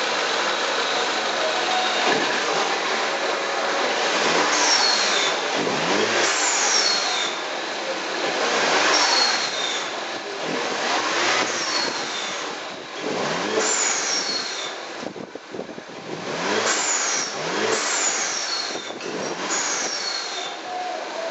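Peugeot 308 engine breathing through an aftermarket fresh-air induction kit, revved again and again, the pitch climbing with each rev. A high whistle falls away each time the revs drop, with a loud intake hiss throughout.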